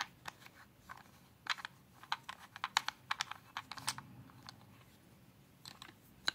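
Irregular small plastic clicks and taps from the parts of a car phone holder being handled: the cradle's back plate, its ball-joint arm and lock ring being unscrewed and fitted together. They come in short clusters, with a quieter gap past the middle and a few more clicks near the end.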